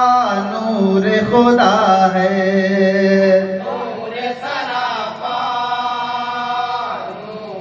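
Men's voices chanting a naat into a microphone, holding long drawn-out notes that slide between pitches, no clear words; somewhat softer after about three and a half seconds.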